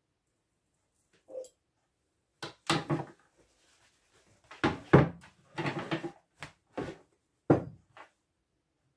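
Denim fabric being handled: a run of short rustles and soft bumps as the cloth is lifted, shaken and laid down on the table, loudest about halfway through.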